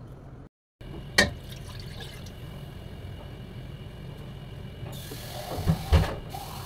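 Kitchen sink tap running for about a second into a glass jug, about five seconds in. Sharp knocks of handled kitchenware come once early on and twice while the tap runs.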